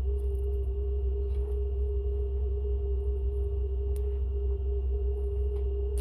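Steady low mechanical hum with a constant mid-pitched tone over it, and a faint click about four seconds in.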